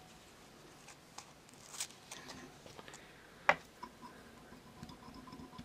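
Quiet handling noises at a fly-tying vise: faint rustling with a few small clicks, the sharpest about three and a half seconds in.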